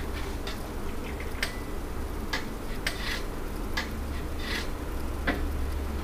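Scattered light clinks and knocks of a metal espresso portafilter and a glass shot glass being handled, about a dozen at uneven intervals, over a steady low hum.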